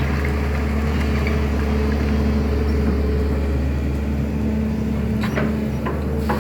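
SANY excavator's diesel engine running at a steady pitch, with a few short knocks about five seconds in.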